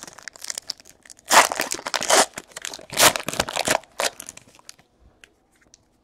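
Foil wrapper of a 2017 Panini XR Football card pack being torn open and crinkled: loud bursts of ripping and crinkling through the first four seconds or so, then only a few faint ticks as the cards are slid out.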